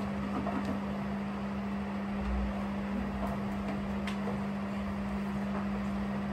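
A steady motor hum with an even hiss, with a few light clicks.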